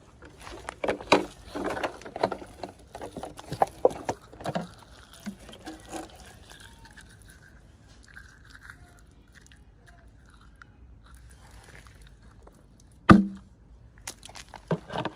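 Close-miked handling of toy packaging and small plastic pieces: a run of crackles and clicks for the first few seconds, a quieter stretch, then a single loud knock about thirteen seconds in and a few more clicks near the end.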